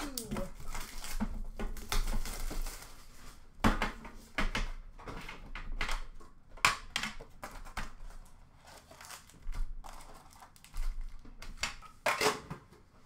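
A metal hockey card tin being opened and emptied: crinkling and rustling for the first few seconds, then a string of sharp clicks and knocks as the lid and tray come off and the packs are taken out.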